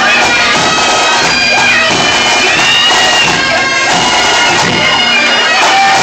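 Bagpipes playing a tune of held notes over the loud chatter of a packed bar crowd.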